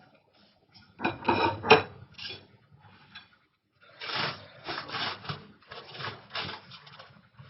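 Irregular rubbing and scraping noises in short strokes, loudest about a second in and again in a run of strokes over the second half.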